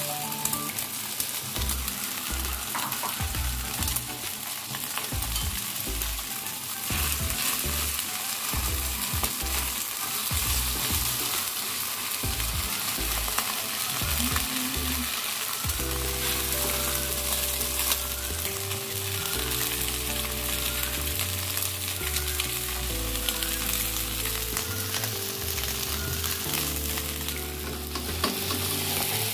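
Oyster and egg omelette sizzling as it fries in a wok, with beaten egg poured over it at the start and a spatula stirring it near the end. Soft background music with held low notes comes in about halfway through.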